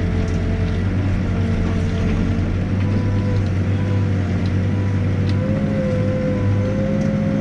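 Backhoe's diesel engine running steadily under work, with a steady whine over the low engine hum that rises slightly in pitch about five and a half seconds in.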